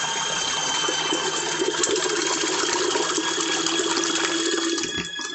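Small portable washing machine running: its motor turns the agitator, churning water around a t-shirt with a steady rushing, sloshing sound over a faint motor whine. The sound drops off suddenly near the end as the drum stops before turning the other way.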